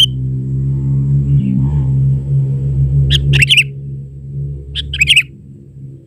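Sooty-headed bulbul giving three quick bouts of bright chirping calls: one at the start, one about three seconds in, one about five seconds in. A low droning hum runs underneath and fades out near the end.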